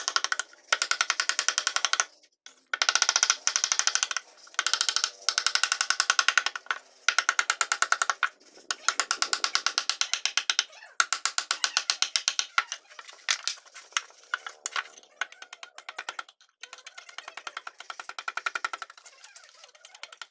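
Rapid light taps of a steel ball-peen hammer on a wood-carving chisel as it cuts into a wooden panel. The taps come several a second in runs of a second or two with short pauses, each strike with a slight metallic ring, and they thin out near the end.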